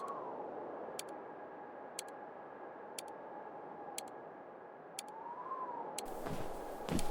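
Clock ticking, one sharp double tick every second, over a steady faint tone that slides up and back down in pitch twice. About six seconds in, a rushing noise with a few knocks starts over it.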